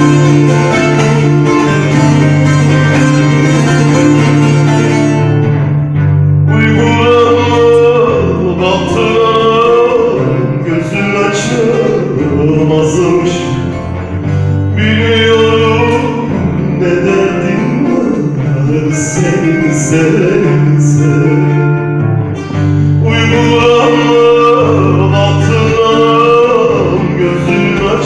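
Live Turkish folk song: a man sings into a microphone, accompanying himself on a plucked round-bodied lute.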